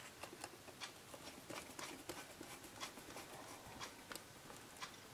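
Faint, irregular light clicks and ticks from a small screw being fitted and driven by hand into a tablet's frame.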